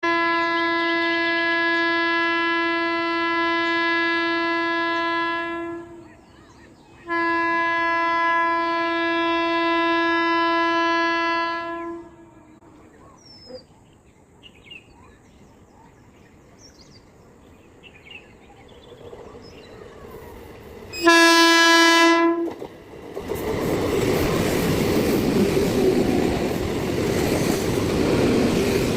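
Indian Railways train horn sounding two long, steady single-note blasts of about five seconds each, then a short loud blast about 21 seconds in. The train then passes close by with a loud rushing rattle of wheels on track.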